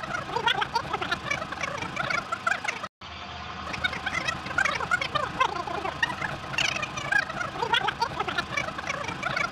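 Many birds chirping and calling at once, a dense overlapping chorus of short rising and falling notes. The sound cuts out completely for a moment about three seconds in.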